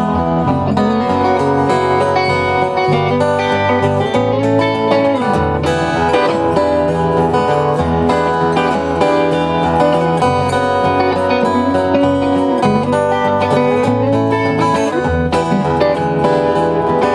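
Live country band playing an instrumental passage without vocals, led by plucked acoustic guitar over steady bass notes.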